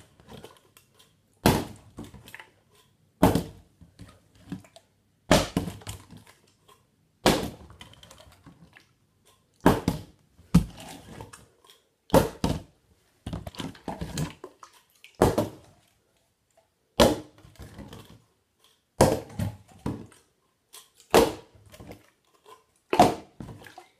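Plastic water bottle with a little water in it being flipped again and again and landing with a thunk on the floor, about a dozen landings, roughly one every two seconds.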